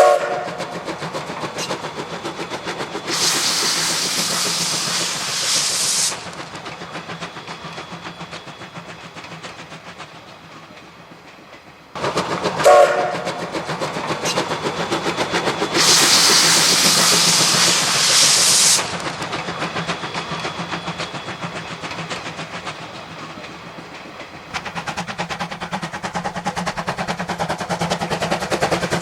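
C12 66 steam locomotive running with its train, a steady rhythmic chuffing and rail clatter. Short steam-whistle blasts sound at the very start and about 13 seconds in, and two bursts of loud hissing come about 3 and 16 seconds in.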